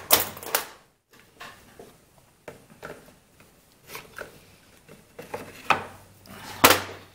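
Small plastic parts and fuel lines being handled at a workbench: scattered light clicks and knocks, with a sharp click at the start and the loudest one near the end.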